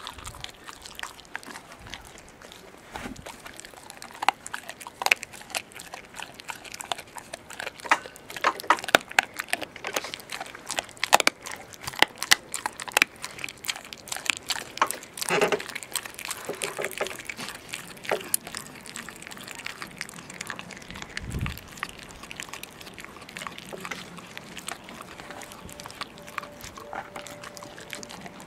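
Landseer Newfoundland puppy chewing and crunching a raw chicken leg, bones and all: irregular cracks and smacks, coming thickest in the first half.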